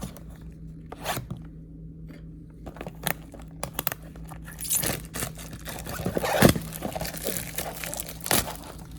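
Cardboard and plastic packaging of a trading-card repack box being torn open and handled: irregular crinkling, tearing and scraping, loudest about five and six seconds in.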